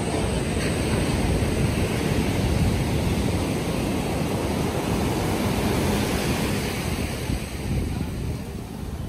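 Ocean surf breaking and washing up on a sandy beach, a steady rush, with wind buffeting the microphone as a low rumble.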